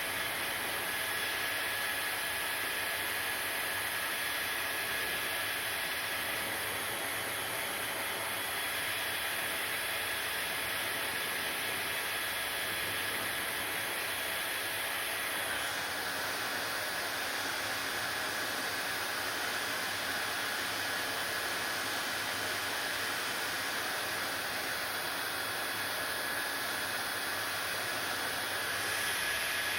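Hair dryer running steadily: an even rush of air with a thin high whine from the motor, shifting slightly in tone about halfway through.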